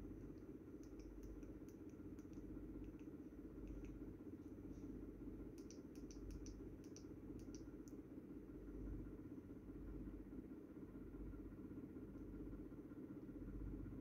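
Faint, steady room hum with scattered light clicks, a small cluster of them in the first half and none near the end.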